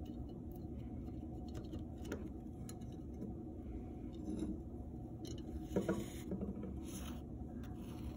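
Handling sounds of yarn and a plastic yarn needle being worked through the holes of a clay loom frame: scattered small clicks and scrapes, with louder rustles about six and seven seconds in, over a steady low hum.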